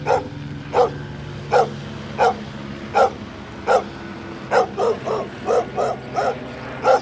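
A dog barking repeatedly: short, sharp barks about every 0.7 seconds that come faster in the middle before slowing again.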